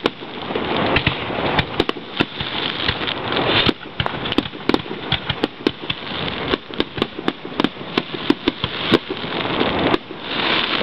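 Aerial firework shells bursting: a rapid, irregular string of sharp bangs over a continuous crackling hiss, densest in the first few seconds and again near the end.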